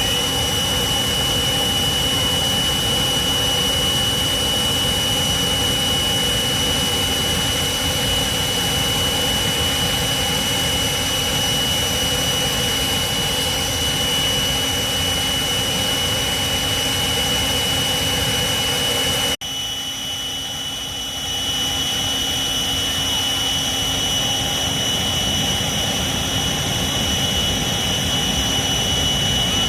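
A steady, loud mechanical roar with a constant high-pitched whine. It breaks off sharply about two-thirds of the way through, then runs on a little quieter before building back up.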